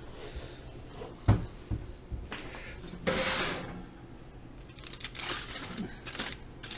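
A metal oven door thunks open about a second in. The oven rack scrapes out a couple of seconds later, then aluminium foil crinkles as a foil packet is opened by hand.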